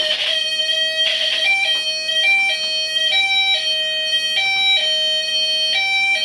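A buzzy electronic tone switching back and forth between a lower and a higher pitch at an uneven pace, about a note every half second.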